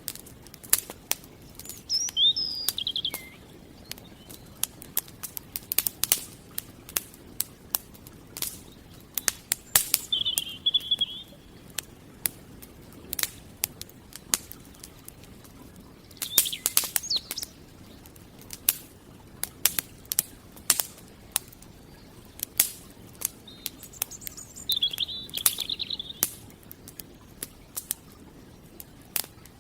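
Campfire crackling, with frequent sharp, irregular pops and snaps. A bird calls four times, each call a short warble of about a second.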